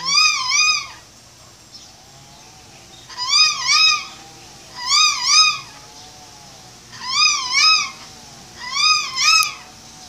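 White cockatoo calling: five loud two-note calls, each note rising and falling in pitch, repeated about every two seconds.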